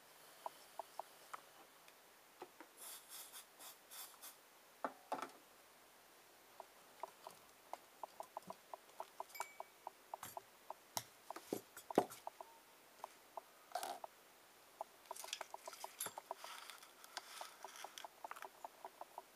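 Quiet workbench handling noises: many light clicks and ticks, in places several a second, with a few short rustles and clatters of metal parts and wires being moved, as the helping-hands clamp stand is cleared away and the aluminium heatsink is picked up.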